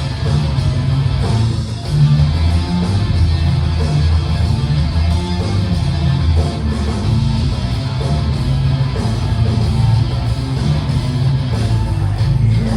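Rock band playing an instrumental passage, with electric guitar to the fore over bass and drums, without vocals.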